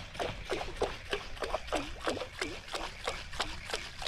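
Water splashing in short, even strokes, about three a second, where the fishing line enters the sea as it is reeled in toward the boat.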